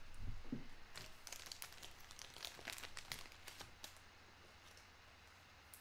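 Faint crinkling and crackling of plastic card packaging as trading cards are handled: a run of small crackles that thins out and stops about four seconds in.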